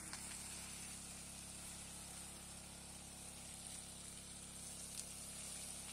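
Strong jet of water from a hose spraying over leafy guava trees: a steady hiss, with a faint steady hum underneath.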